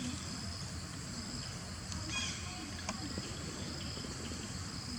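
Steady high-pitched insect chorus over a low rumble, with a few faint short chirps about two seconds in.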